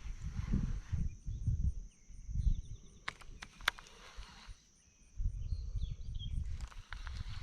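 Insects, such as crickets, keep up a steady high-pitched buzz. Over it come repeated low rumbling bursts, which are the loudest sounds, and a couple of sharp clicks about three seconds in.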